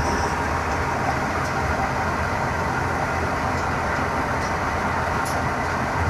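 Belt-driven patoz threshing machine running steadily while threshing grain: a continuous mechanical hum.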